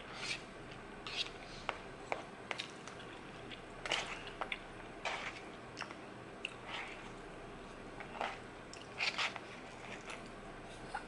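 Close wet chewing, smacking and slurping of angel hair pasta, coming in short irregular bursts with a few sharp clicks between them.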